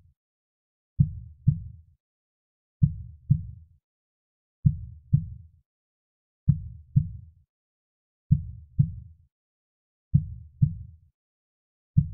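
Slow, soft heartbeat: pairs of low thumps (lub-dub) repeating evenly a little under two seconds apart, with silence between the pairs.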